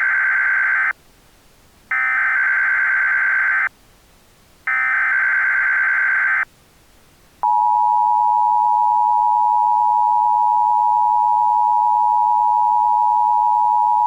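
Emergency Alert System (EAS) SAME header: three identical digital data bursts, each just under two seconds with short gaps between, the first already running at the start. About seven and a half seconds in, the steady two-tone EAS attention signal begins and holds, announcing that an emergency warning message follows.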